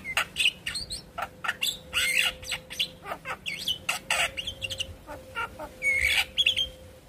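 Javan myna singing: a rapid run of short, sharp chirps and clicks, several a second, mixed with brief whistled notes and one longer whistle about six seconds in.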